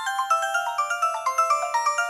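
Samsung SGH-Z130 mobile phone playing one of its ringtones: a fast melody of short, bright notes, several sounding at once.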